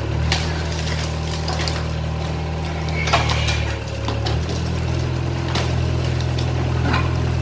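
Excavator's diesel engine running steadily, its note dipping briefly about four seconds in, with scattered knocks and clatter of concrete debris being struck. The loudest knock comes about three seconds in.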